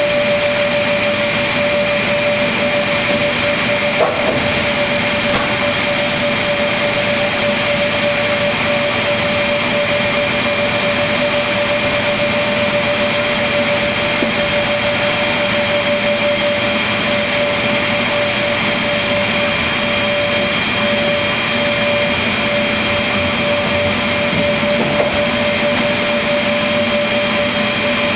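Automatic MDF panel-cutting machine running with a steady whine over a broad mechanical noise, with a sharp knock about four seconds in and another near the end.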